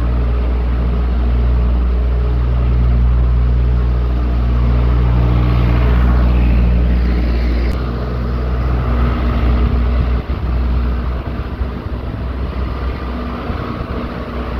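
A farm machine's engine running steadily under load. About eight seconds in its steady hum weakens and the sound turns rougher and more uneven.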